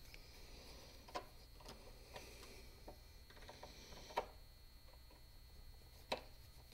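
A screwdriver working the small screws of a 5000-watt power inverter's terminal block: a handful of faint, scattered clicks, about six, with the sharpest about four seconds in and another near the end.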